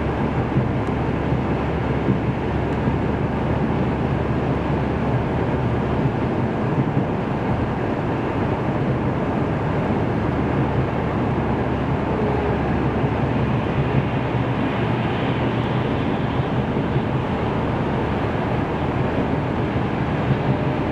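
Steady road noise inside a car cabin at highway speed: tyre and wind noise with a low engine hum, even throughout.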